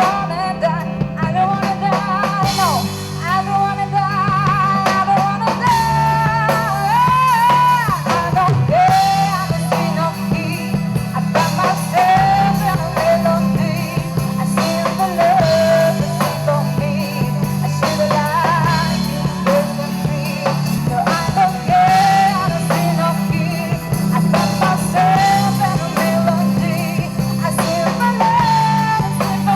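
Live rock band playing with a singer: electric guitar, bass and drum kit under a sung melody.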